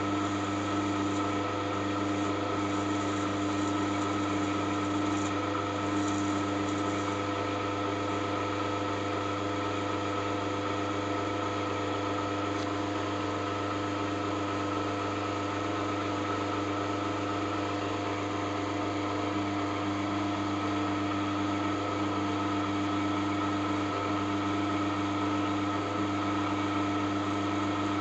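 Electric drill running steadily at about 500 rpm, a constant hum with several steady tones, while a 1.5 mm bit bores into the head of a socket-head cap screw to make a safety-wire hole.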